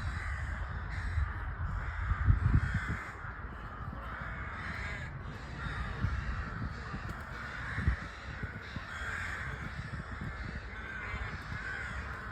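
A flock of crows cawing, many harsh calls overlapping into a continuous chorus. A low rumble runs underneath, loudest about two seconds in.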